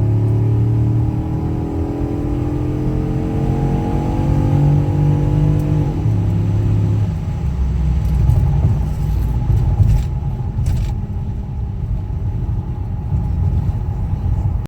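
A motor vehicle engine accelerating: its pitch rises steadily for about six seconds, drops suddenly, then settles into a steady low rumble.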